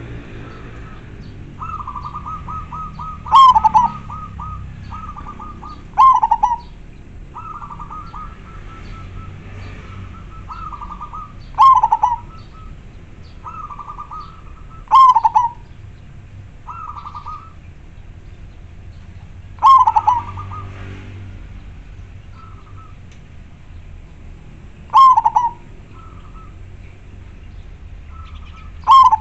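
Zebra dove (perkutut) singing: repeated phrases of quick short notes, each ending in a loud, slightly falling coo, about seven phrases a few seconds apart.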